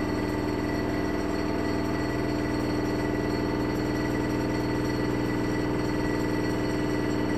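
Haier HLC1700AXS washer/dryer combo in its final spin: the drum motor runs at a steady speed with an even hum and whine that does not change.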